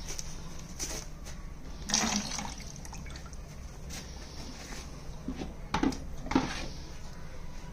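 Cow drinking from a plastic tub of water: irregular wet slurps and sucks, the loudest about two seconds in and twice around six seconds.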